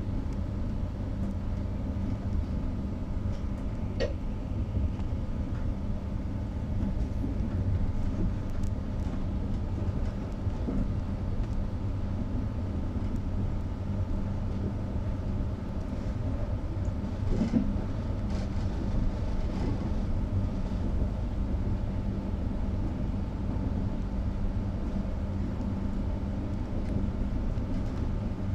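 Cabin noise of a Trenord TAF electric multiple unit running at speed: a steady rumble of wheels on rail under a steady low hum, with a few faint clicks.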